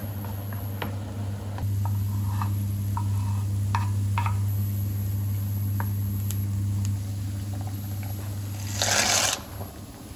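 Wooden spoon stirring chopped onions in a frying pan, with light scrapes and taps against the pan over a steady low hum. A short rush of noise comes near the end.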